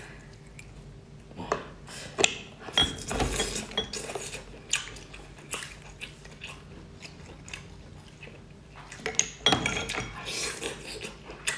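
Cooked abalone being pried from its shell by hand: a series of sharp clicks and scrapes of shell and hard seafood against the plate, with biting and chewing near the end.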